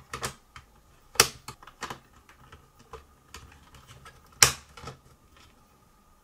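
AA batteries handled and pressed into the plastic battery compartment of a Honeywell CM907 programmer: a series of small plastic clicks and knocks, with two sharper snaps about a second in and about four and a half seconds in.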